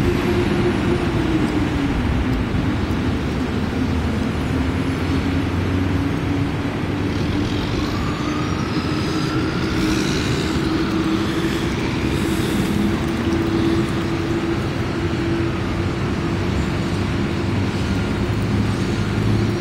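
A steady motor drone whose pitch sags slightly and slowly rises again, over a constant rough noise.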